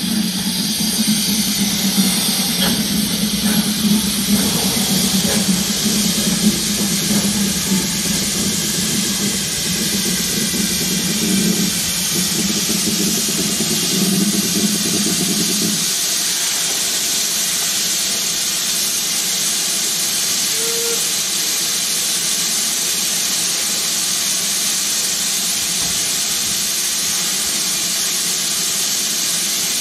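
Steam hissing steadily from GWR King class 4-6-0 locomotive No. 6023 as it rolls slowly along the shed tracks. A low rumble of the moving engine stops about halfway through as the locomotive comes to a stand, while the steam hiss carries on.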